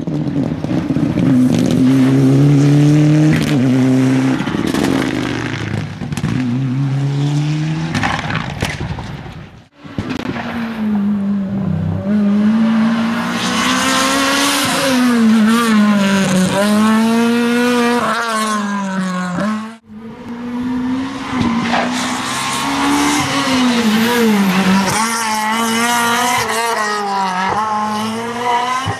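Rally cars driven hard on a special stage, their engines revving high and dropping back again and again through gear changes and lifts. It comes as three separate passages, each ending in an abrupt cut.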